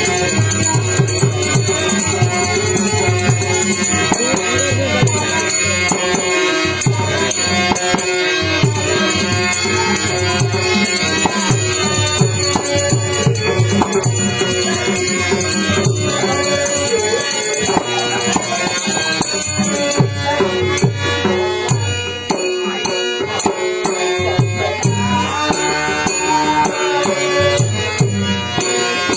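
Indian instrumental music: hand drums keeping a steady rhythm, with jingling percussion over held melodic tones.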